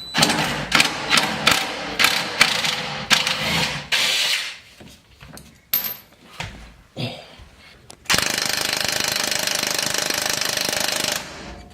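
Sharp metallic clicks and knocks of hand tools working on bolts under a BMW N54 car, then, about eight seconds in, an impact wrench hammering steadily for about three seconds before it stops abruptly.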